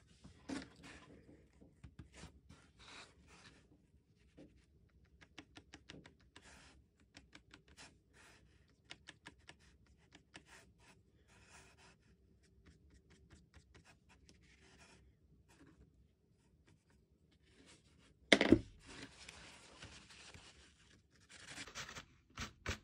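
Faint light tapping and scratching of a small paintbrush dabbing paint into the raised letters of embossed cardstock. About three-quarters of the way through there is a sharp thump, followed by a rustling rub as the card is wiped.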